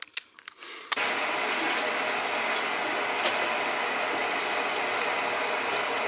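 A few light clicks as a cardboard matchbox is handled. About a second in, water from a shower hose starts suddenly and pours steadily into a bathtub.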